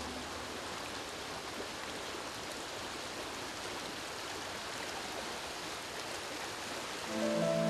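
Steady rush of flowing stream water. Harp music fades in near the end.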